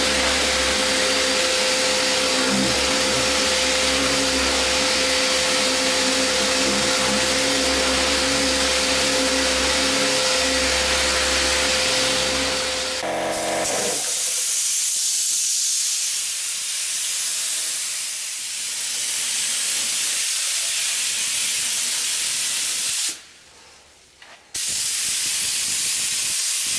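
Random orbital sander running steadily on a car boot lid. After a short break, an air-fed paint spray gun hisses as it lays a coat of paint on the lid, stops for about a second and a half near the end, then starts again.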